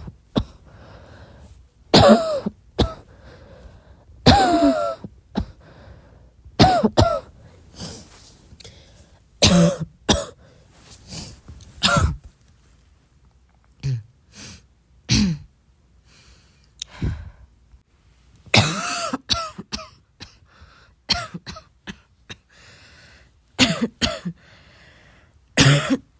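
A person coughing over and over: short coughs every second or two, some of them voiced.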